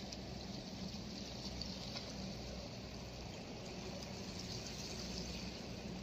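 Seawater lapping and washing against the rocks at the edge of a harbour, a steady wash of noise, with a low steady hum underneath.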